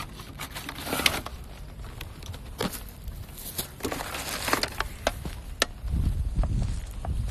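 Handling noise on a handheld phone's microphone: scattered rustles and clicks, with a low rumble building near the end.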